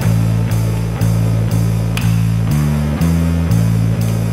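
Background rock music with guitar and bass over a steady beat of about two beats a second.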